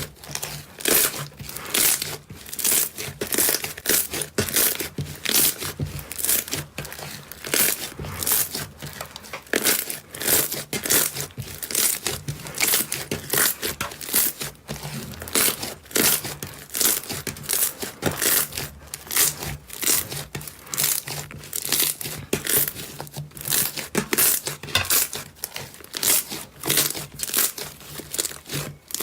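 Hands squeezing and poking slime, making a quick, irregular series of sharp crackling pops, roughly two or more a second, that stop suddenly near the end.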